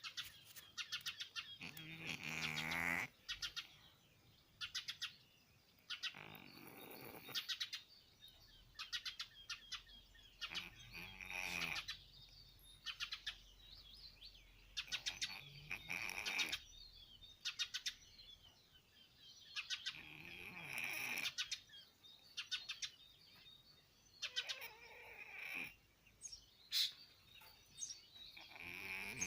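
Sleeping cat snoring: a faint, rattly snore comes with each breath, about every four seconds.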